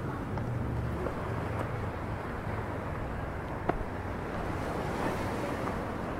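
Sea washing against a rocky shore, with wind buffeting the microphone as a steady low rumble, and a single sharp click a little past halfway.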